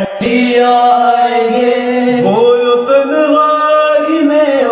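A man's voice singing an Urdu lament about the grave, holding long drawn-out notes with slow slides in pitch between them.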